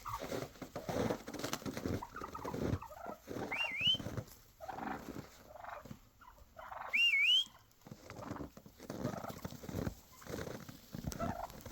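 A flock of wild turkeys calling and clucking in short, irregular notes, with two brief rising whistles, one at about three and a half seconds and a louder one at about seven seconds.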